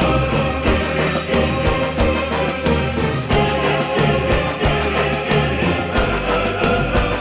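A loud song with a steady drum beat and bass, with choir-like singing.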